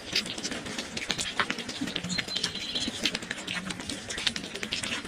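A cat chewing and smacking its food: a run of irregular, quick mouth clicks.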